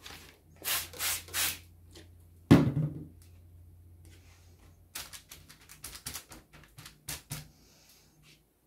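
Two quick spritzes from a hand trigger spray bottle about a second in, then a knock. After that come a run of light clicks and rustles as paper cards are laid and pressed down on damp paper in a metal baking tray.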